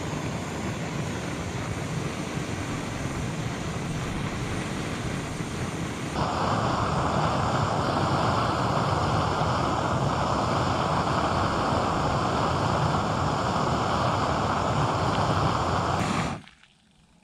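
Canister camping stove's gas burner running under a steel mug of water, a steady rushing hiss. About six seconds in it gets louder and fuller, and near the end it cuts off sharply as the valve is turned shut.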